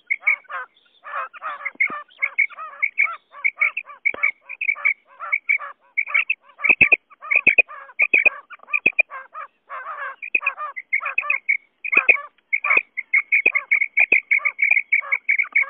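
Quail (batair) calling over and over: a dense, unbroken string of short, high call notes, several each second, of the kind played as a lure call to draw quail to a net.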